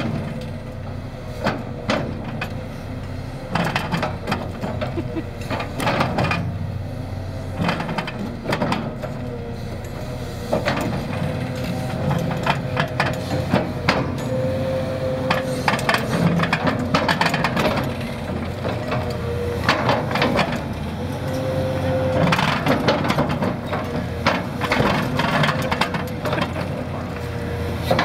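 Deere 650D excavator's diesel engine running under load while its ripper shank tears through rock, with repeated cracks, knocks and scrapes of rock breaking and grinding against the steel.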